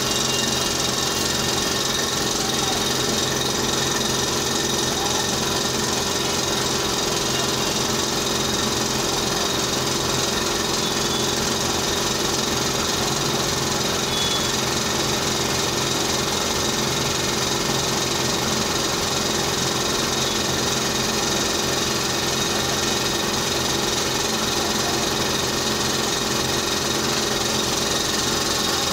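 Dental equipment motor running with a steady, unchanging hum made of several fixed tones.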